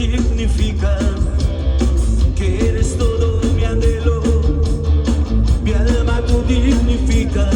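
Live rock and roll band playing loud, with a steady drum beat and heavy bass.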